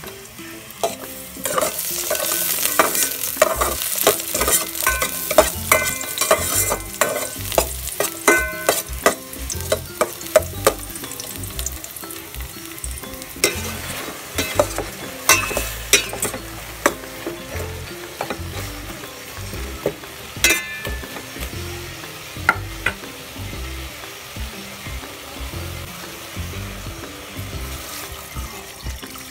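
Pork, onion and tomato sizzling as they sauté in an aluminium pot, stirred, with many sharp clinks and knocks of the utensil against the pot. The sizzle is loudest for the first ten seconds or so, then eases off.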